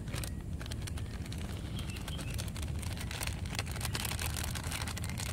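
Plastic instant-noodle seasoning sachets crinkling and crackling in irregular short clicks as they are torn open and squeezed out over a bowl, over a steady low hum.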